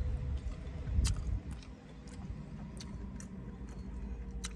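Close-up eating sounds: chewing a mouthful of rutabaga and purple cabbage, with a few sharp clicks and smacks. A low wind rumble comes through the open car windows.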